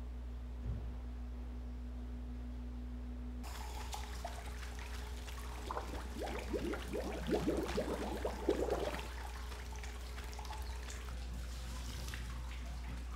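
Water running and splashing, loudest about six to nine seconds in, over a steady low hum.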